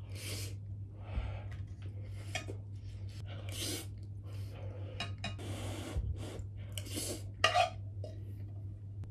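Spoon clinking and scraping in a frying pan as fried rice is eaten straight from the pan, with short noisy breaths between mouthfuls.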